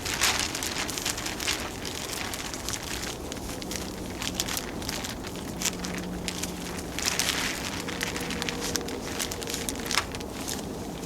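Rustling and crackling from hands-on shelter work, with louder rustles near the start, about two-thirds of the way through and near the end.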